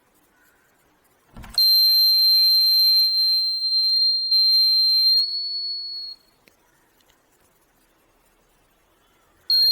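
Homemade door alarm's buzzer, set off by the door opening, sounding a steady high-pitched tone for about four seconds after a thump, then fading out. It sounds again briefly near the end.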